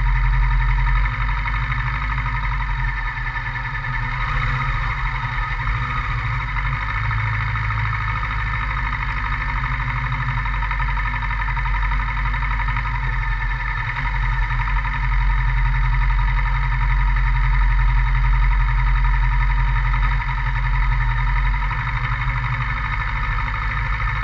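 Kawasaki Versys 650's parallel-twin engine running steadily at an even, unchanging speed.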